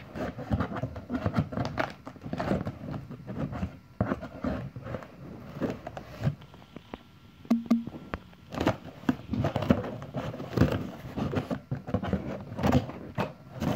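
Scissors cutting and scraping along packing tape on a cardboard shipping box, with irregular clicks, scrapes and cardboard rustling as the box is worked open.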